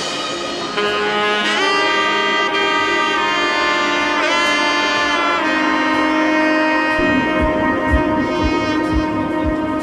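Background music: long held melodic notes with one note sliding down and back around the middle, and a low beat coming in about seven seconds in.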